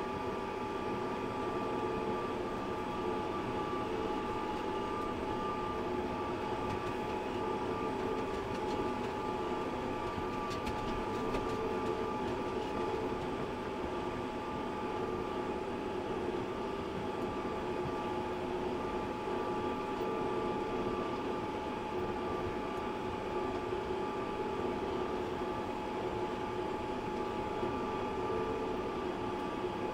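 Tractor engine running at a steady speed while pulling a hay rake: a constant drone with a few held whining tones that do not change.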